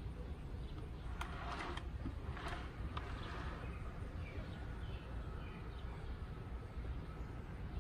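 Outdoor background: a steady low rumble with two short hissy rustles, about a second and two and a half seconds in, and a few faint high chirps later on.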